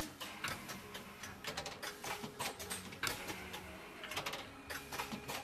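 Automatic turntable pad printing machine running: its pneumatic cylinders and silicone pad head moving, with a fast, irregular run of mechanical clicks and knocks.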